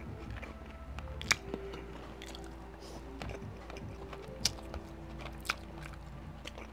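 Close-up eating sounds: a person chewing a mouthful of spicy noodles, with a few sharp clicks of a metal fork against the plate, the loudest about a second in and two more near the end.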